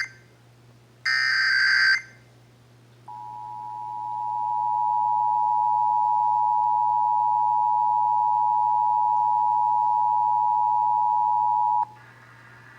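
A one-second burst of EAS SAME header data, warbling digital tones, about a second in. Then the Emergency Alert System two-tone attention signal (853 and 960 Hz sounded together) fades in, holds steady for about nine seconds, and cuts off abruptly.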